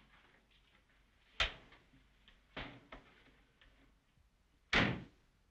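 Kitchen handling noises: a few sharp knocks and clatters as a cupboard door and crockery or pots are handled. The loudest come about a second and a half in and again near the end.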